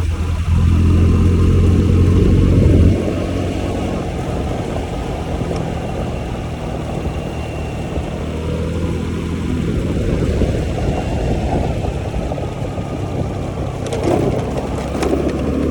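Honda Zoomer 110 scooter's single-cylinder engine running under way, with wind noise on the microphone. The engine is loudest for the first three seconds, then eases off as the throttle comes back, and a few sharp clicks come near the end.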